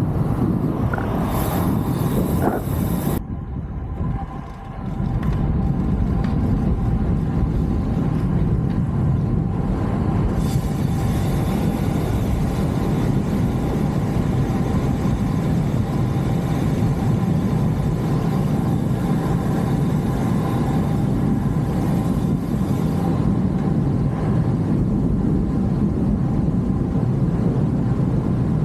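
Steady rushing of wind on the microphone of a fast-moving action camera, mixed with road noise, at about 35 to 50 km/h. It breaks off and dips briefly about three seconds in, then resumes just as steady.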